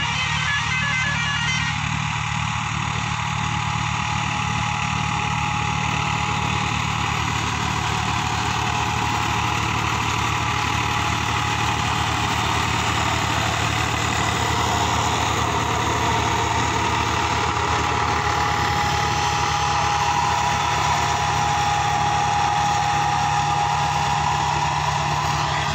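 Diesel engine of a Powertrac tractor running steadily while pulling a seed planter through the field, with a steady high whine that grows stronger in the second half.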